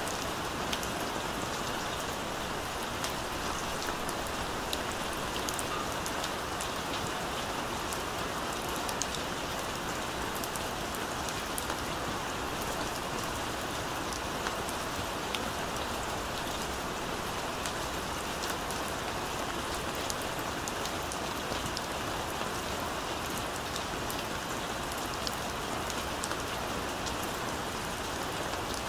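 Steady rain falling: a continuous hiss of rain with many small, sharp drop ticks scattered through it.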